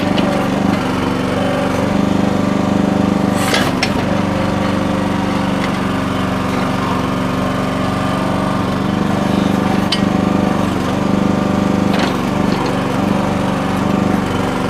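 The small engine of a Red Rock mini backhoe running steadily while it digs. A few sharp clicks sound over it.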